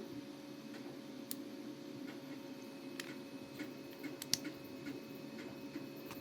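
Scattered light clicks and taps of 3D-printed plastic parts being handled and fitted together, the sharpest a little past four seconds in, over a steady low background hum.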